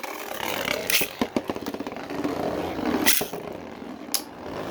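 Three 3D-printed plastic Beyblade spinning tops whirring and rattling in a plastic stadium, with a stream of small clicks and a few hard collision cracks as they clash, the loudest about a second, three seconds and four seconds in.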